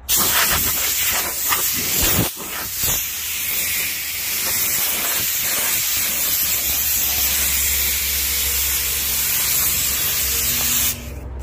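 Foredom industrial flex shaft spinning a rotary bur that grinds into wood: a loud, high rasping hiss over a low motor hum. The hiss comes in short surges at first, then runs steadily, and cuts off sharply near the end.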